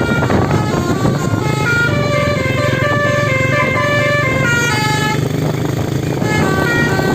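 Bus 'telolet' horn, a set of air-horn trumpets playing a long run of notes that step up and down in pitch, several sounding together, over a steady low engine hum.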